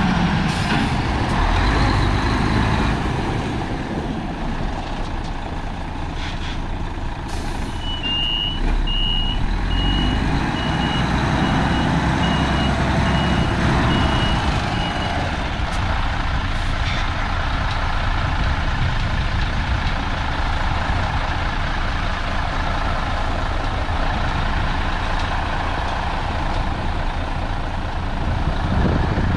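2008 Mercedes-Benz Actros 3331 tanker truck's V6 diesel engine running as the truck drives slowly. About seven seconds in comes a short hiss of air, then a reversing alarm beeps high and steady, roughly every half second for about seven seconds, growing fainter.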